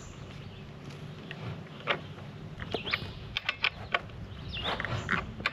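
Scattered light metal clicks and scrapes of a chainsaw multi-tool (scrench) turning the bar-mount nuts on a Stihl chainsaw's side cover, snugging them down to lock the freshly tensioned bar and chain.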